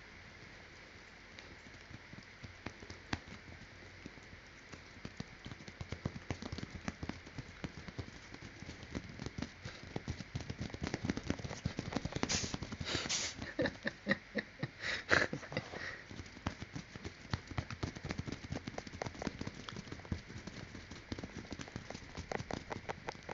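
A cat sneezing a few times in quick succession about halfway through, short sharp bursts against a steady bed of irregular soft clicking and rustling.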